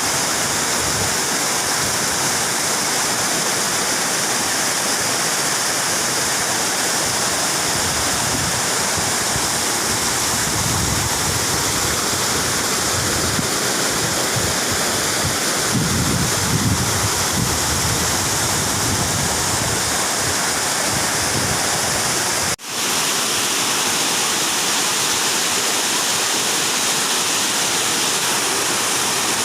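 Small seasonal waterfall pouring steadily, an even rush of falling water, running with its rainy-season flow. The sound cuts out for an instant about three quarters of the way through.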